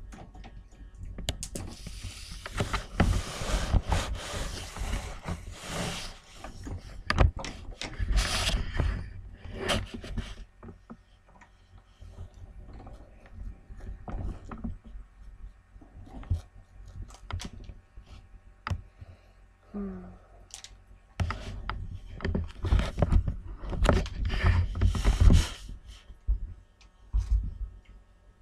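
Small dogs, a Shih Tzu and a Chihuahua, scuffling and playing with a chew toy on a hardwood floor: irregular scraping, knocking and clicking in two noisy spells, with a quieter stretch between.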